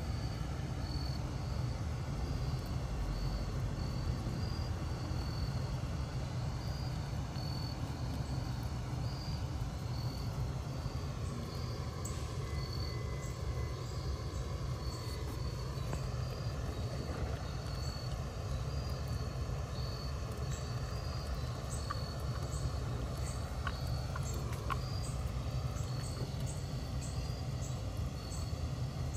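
Outdoor ambience: a steady low rumble, with insects chirping in a regular high-pitched pulse and shorter, higher chirps joining about halfway through.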